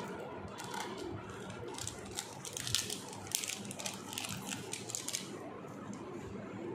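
Irregular light clicking and tapping, thickest in the middle few seconds, over a low steady room murmur.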